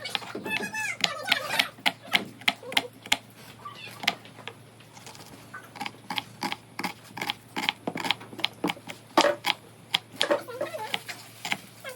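A run of sharp, irregular clicks and taps, a few a second, easing off for a couple of seconds near the middle, with faint voices in the first moments.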